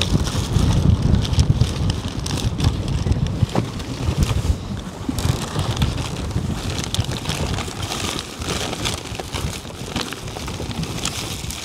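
Strong wind buffeting the microphone, an irregular gusting rumble, with scattered light clicks and rustles.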